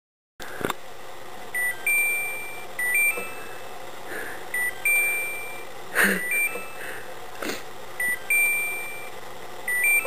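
Dishwasher's electronic signal beeping, a short lower beep followed by a higher one, in groups repeating about every three seconds over a steady low hum. A few sharp knocks come in between.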